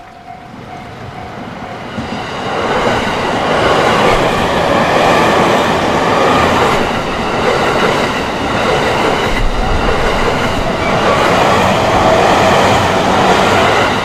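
A JR Tokaido Line commuter electric train passing over a level crossing at speed. Its noise builds over the first few seconds as it approaches, then stays loud and steady as the carriages go by.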